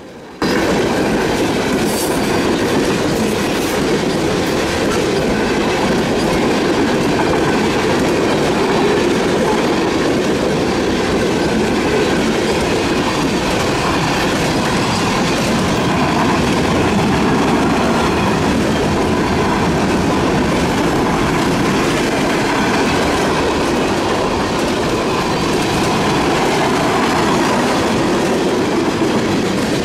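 Freight train cars rolling past at close range: a loud, steady rumble and clatter of steel wheels on rail, starting abruptly about half a second in.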